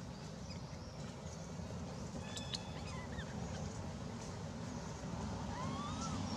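Steady low outdoor rumble with a few faint, short high-pitched animal calls: a brief squeak about two and a half seconds in and a rising call near the end.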